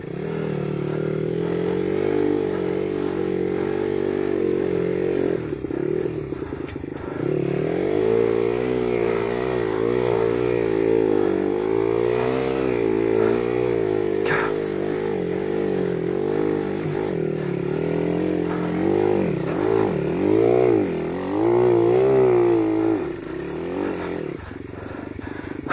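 Small off-road motorbike engine running, steady at first, then revving up and down over and over from about seven seconds in, with a short click partway through.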